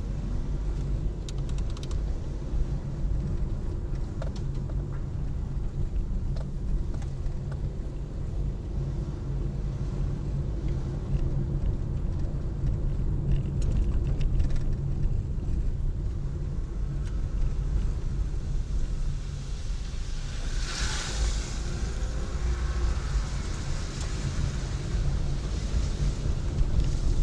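A car driving: a steady low rumble of engine and road noise, with a brief rushing hiss about twenty seconds in.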